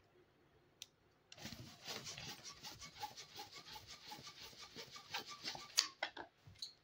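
Fingers rubbing and handling an inflated latex modelling balloon: a dense run of small rubbing squeaks and crackles that starts after a second or so of quiet, with a few sharper clicks near the end.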